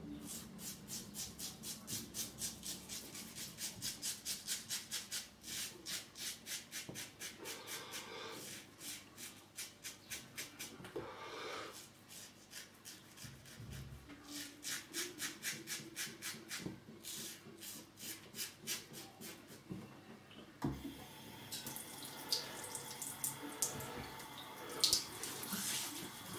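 Double-edge safety razor (Rex Supply Co. Ambassador with a Gillette Red blade) scraping through lathered stubble on the chin in quick short strokes, several a second, in runs with short pauses. Near the end the strokes stop and give way to a softer rubbing of a hand over the skin.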